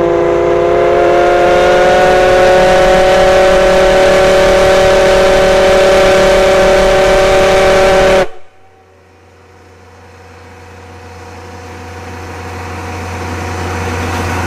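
Steam whistle of the JNR Class C61 steam locomotive C61 20 giving one long blast of several pitches sounding together. It slides up slightly as it comes in, holds steady for about eight seconds and cuts off suddenly. After it, a lower steady hum and hiss slowly grows louder.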